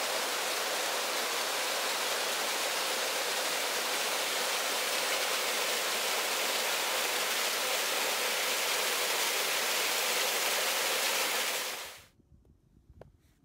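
Steady rush of flowing water, stopping abruptly about twelve seconds in.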